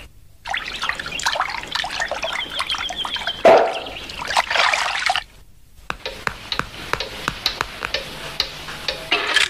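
Cartoon sound effects: water splashing and sloshing with many small clicks, a high whistle held for about a second, and a loud hit about three and a half seconds in. After a short silence there is a run of regular ticks.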